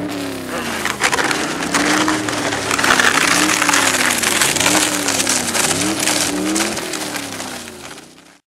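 Car engine revving, its note rising and falling several times over a steady rush, then cutting off abruptly near the end.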